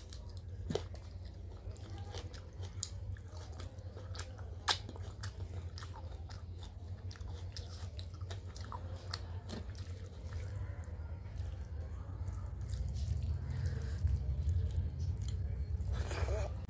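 Close-up chewing of dal and rice eaten by hand, with many small wet clicks and smacks of the mouth and one sharper click about five seconds in. A steady low hum sits underneath.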